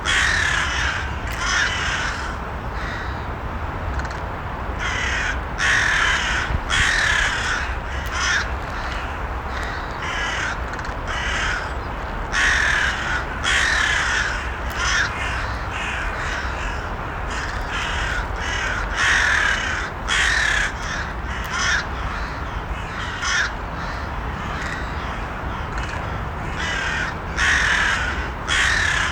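Crows cawing, short harsh calls coming in runs of two or three every few seconds, over a steady low rumble.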